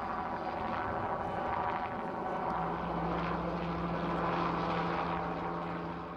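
Aircraft engine running steadily, with a low steady hum coming in about two and a half seconds in and the sound easing off near the end.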